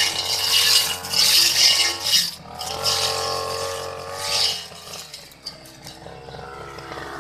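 Backpack petrol brush cutter with a cutting blade running at high revs, swishing through grass in repeated sweeps. About five seconds in the engine drops back to a lower, steadier idle.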